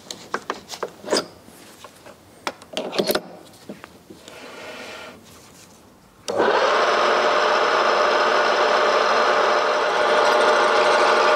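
Small metal lathe: a few scattered clicks and knocks as tooling is handled at the tailstock. About six seconds in the lathe starts and runs steadily, a 5.5 mm drill bit in the tailstock chuck boring through a turning nylon piece.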